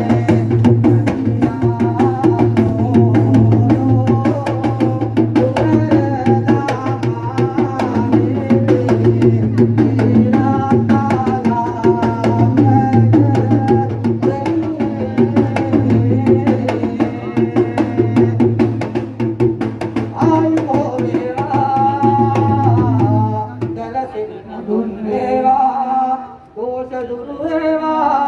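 Traditional Sri Lankan drumming for a street dance: fast, dense drum strokes with a wavering melody over them and a steady low hum underneath. The drumming and hum stop about four seconds before the end, and a voice begins chanting.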